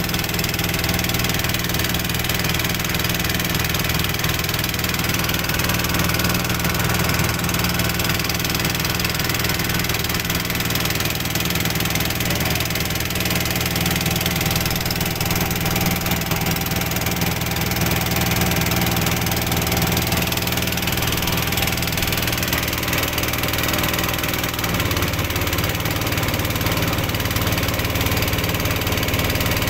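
Small wooden boat's engine running steadily under way, a continuous low drone; its low note shifts slightly near the end.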